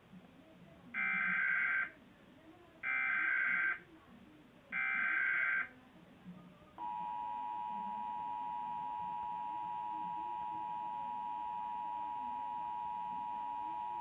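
Emergency Alert System test tones played through a television: three short bursts of the SAME header data signal, each about a second long and about two seconds apart, then the steady two-tone EAS attention signal beginning about seven seconds in and holding.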